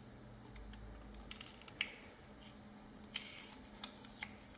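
Faint small clicks and scratches of a thin metal pick prying and peeling a glued-on strip from the plastic underside of a Dell MS3320W wireless mouse, in a few separate bursts.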